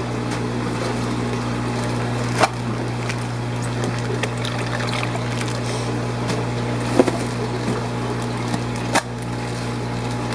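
Steady hum and running water of a fish room's aquarium pumps and filtration, with three sharp clicks or taps along the way.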